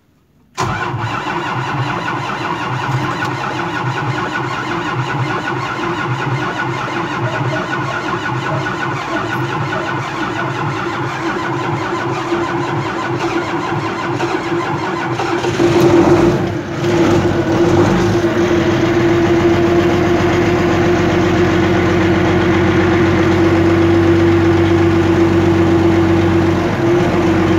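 Ursus 1224 tractor's six-cylinder diesel cold-starting at −20 °C without any pre-heating: it cranks and fires unevenly for about fifteen seconds, catches with a surge about sixteen seconds in, then settles into a steady idle.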